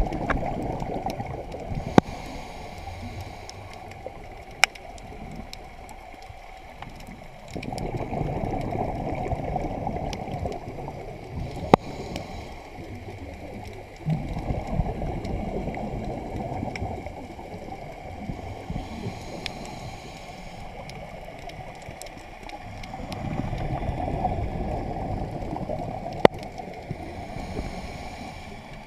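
Scuba diver's exhaled bubbles gurgling past an underwater GoPro Hero 3 housing, in swells a few seconds long that come back about every seven or eight seconds with each breath. A few single sharp clicks stand out.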